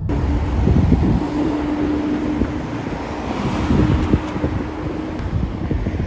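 Wind buffeting the microphone over outdoor traffic noise, with a steady hum that stops about five seconds in.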